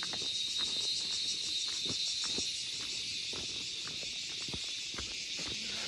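Steady, shrill chorus of forest insects with a fast pulsing, over faint scattered footsteps and crunches on a dirt path.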